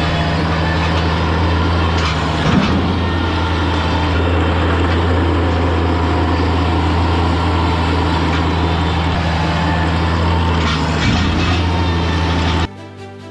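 Engine of a mini skid steer running steadily at constant speed, with a couple of knocks about two and a half seconds in and again near eleven seconds. It cuts off abruptly near the end.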